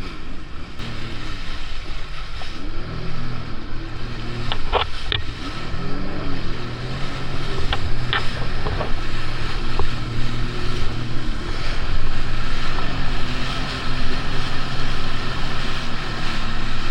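Jet ski engine running on the water, its pitch rising and falling as the throttle changes.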